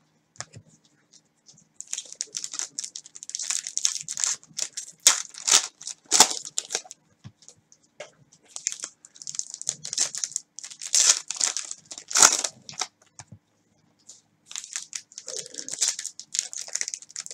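Foil trading-card pack wrappers being torn open and crinkled by hand: irregular crackling and tearing in three bouts, separated by short pauses.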